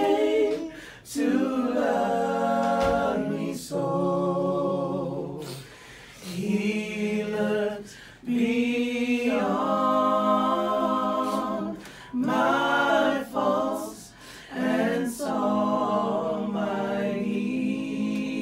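Several voices singing together unaccompanied, in slow phrases of long held notes with short breaths between them.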